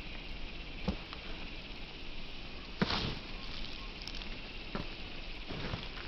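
Sneakered footsteps landing on wooden log stumps: a few separate thuds, the loudest just before three seconds in, over a steady outdoor hiss.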